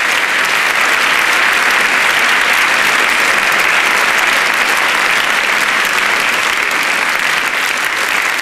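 Live audience applauding: dense, steady clapping at an even level.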